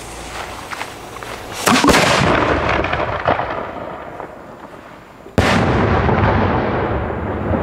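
Two heavy firework blasts from large consumer fireworks, the first a double crack under two seconds in and the second about five and a half seconds in, each followed by a long rolling echo that slowly fades.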